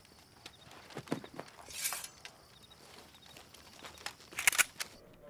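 Footsteps of several men and a horse's hooves on stone paving, with scattered knocks and clinks. There is a short hiss about two seconds in, and a quick cluster of sharp clicks about four and a half seconds in is the loudest moment.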